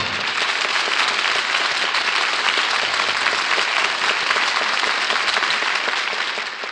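Studio audience applauding as the orchestra's finale ends; the applause fades away near the end.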